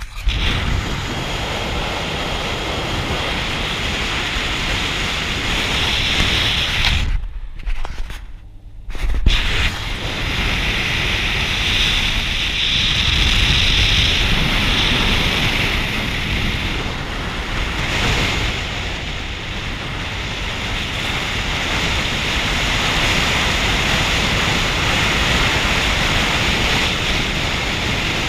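Wind rushing and buffeting over the camera microphone as it is held out the window of a car moving at road speed, with a steady rumble from the road underneath. The rush goes briefly muffled about seven seconds in, then comes back as strong as before.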